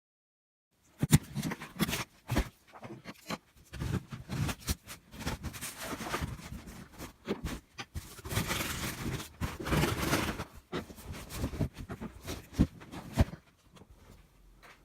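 A large cardboard box being handled and opened: irregular knocks and clicks with scraping and rustling. It stops abruptly near the end.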